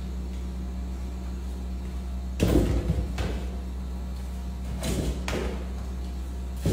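A football being kicked and thudding against a tiled floor and wall: one loud thud about two and a half seconds in, then several lighter ones, over a steady low hum.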